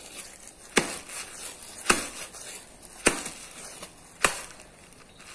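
Two nested baskets holding green mango being beaten, giving four sharp smacks about a second apart. The beating is to crush and break up the mango pieces.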